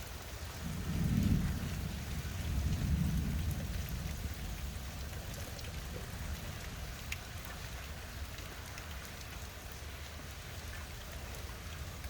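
Steady rain falling, with a low rumble of thunder that swells about a second in, again around three seconds, then fades.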